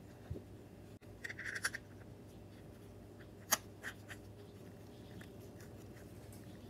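Light clicks and scrapes of a rebuilt fuel pump and its gasket being wiggled into line on a Mercury 135 BlackMax outboard. There is a brief scratchy squeak just over a second in and one sharper click about three and a half seconds in, over a faint steady hum.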